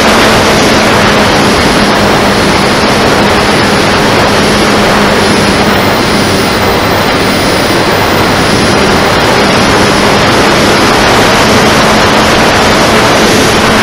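850kv brushless electric motor and 12x8 propeller of a flying wing running steadily in flight: a faint, steady hum under a loud, constant rush of air over the onboard camera's microphone.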